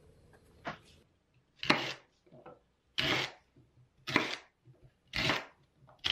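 Kitchen knife chopping rhubarb stalks on a wooden cutting board: a slow, even series of crisp cuts, about one a second.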